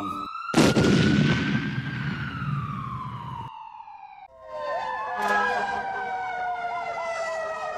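A sudden loud blast about half a second in, its noise dying away over about three seconds under a high ringing tone that slowly falls. From about four seconds in, emergency vehicle sirens sound together, one warbling rapidly.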